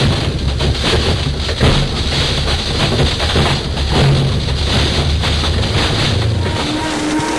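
Blender motor running on its smoothie setting with an iPhone being smashed and ground in the jar: a loud drone full of rapid clattering knocks. About six and a half seconds in, the clatter drops away and a steadier, pitched whine takes over.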